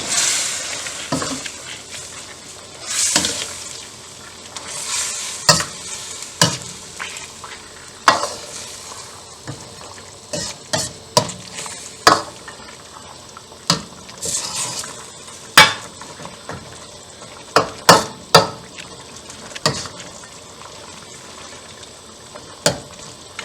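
A utensil stirring pork tomato stew in a cooking pot, knocking and scraping against the pot every second or so over a sizzle that swells now and then.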